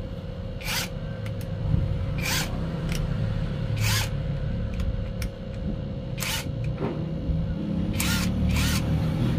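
Hand ratchet wrench ratcheting in short rasping strokes, about six of them a second or two apart, over a steady low rumble.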